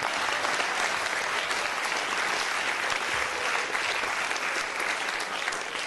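Audience applauding: dense, steady clapping that eases off near the end.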